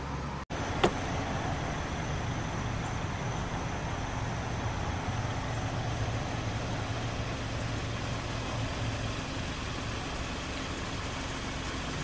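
Steady low motor hum under outdoor background noise, with a single sharp click about a second in.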